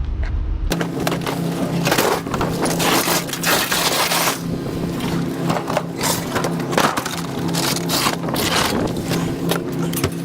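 Scrap metal being thrown off a truck onto a pile: many crashing and clanging impacts at uneven intervals, over a steady machine hum.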